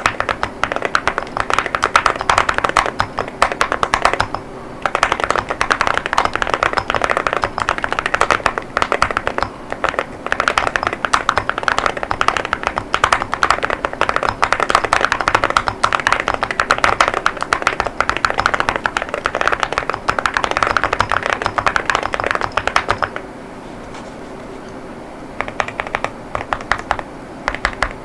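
Fast, continuous typing on an Akko JIN01 mechanical keyboard with Akko Rosewood 40 gf linear switches and Cerakey ceramic keycaps: a dense clatter of keystrokes. There is a brief pause about four seconds in, and a longer pause of about two seconds near the end before typing resumes.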